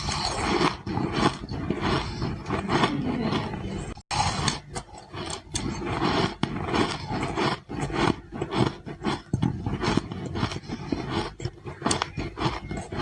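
Ice being bitten and chewed up close, a dense, irregular run of crisp crunches, with a brief break about four seconds in.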